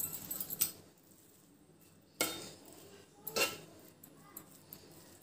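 A flat metal spatula knocking and scraping against an aluminium cooking pot while cooked rice is spread in it: a few separate clinks, the loudest about two and three and a half seconds in, then light ticks.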